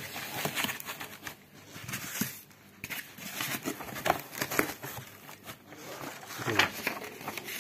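Foam packing blocks being pushed into a cardboard box around a plastic-wrapped developer unit: irregular rustling, scraping and crinkling of foam, plastic wrap and cardboard.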